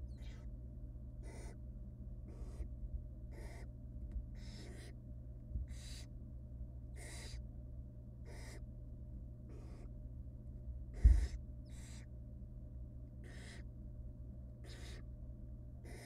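Barn owl nestlings' rasping, hissing begging calls, repeated about once a second, over a steady low hum from the nest-box camera. A single loud thump comes about eleven seconds in.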